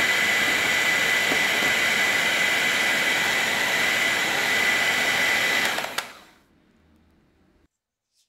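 Electric hand mixer whipping egg whites into meringue in a glass bowl: a steady motor whir with a thin high whine. It is switched off with a click about six seconds in, and near silence follows.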